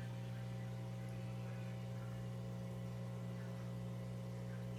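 Steady, unchanging low electrical hum with a few faint higher tones, and nothing else heard.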